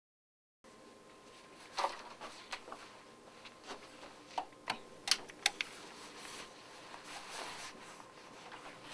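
Quiet small-room tone with a faint steady hum, coming in after a split second of dead silence, with a scattered series of light clicks and knocks.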